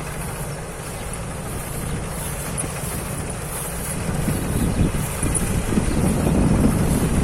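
Thai Seng Yont rice combine harvester running steadily, its engine and harvesting machinery making a continuous low mechanical din that grows louder about halfway through.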